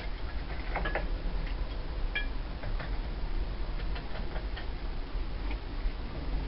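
Scattered light metallic clicks and ticks from a spanner working the 13 mm bolts on a washing machine's top frame, with a cluster about a second in and a short ringing click just after two seconds, over a steady low rumble.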